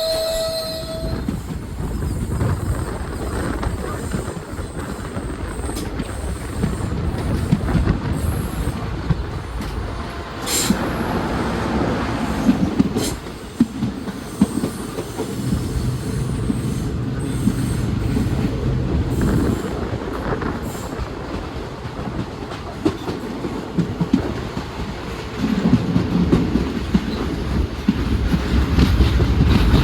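Indian Railways passenger train running on the rails: a continuous low rumble with wheel clatter and scattered sharp clicks, swelling louder at times.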